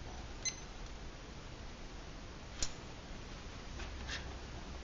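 Quiet room with a steady faint hum and a few light clicks. The first, about half a second in, is a digital timer's button being pressed to start the count; the sharpest comes a little past halfway.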